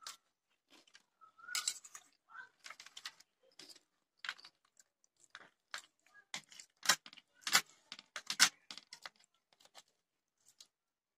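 Metal forks clinking and scraping on a plate of noodles and fries, in an irregular scatter of sharp clicks; the loudest three come about seven to eight and a half seconds in.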